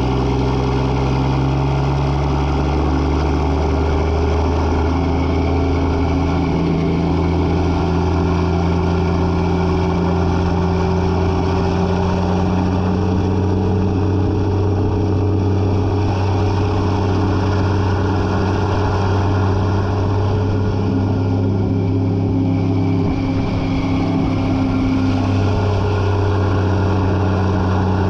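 Semi truck's diesel engine running steadily under way, heard from behind the cab, its pitch shifting up and down a few times as it pulls along.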